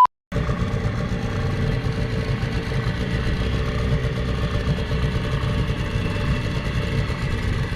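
An engine running steadily with a low rumble, heard while riding along.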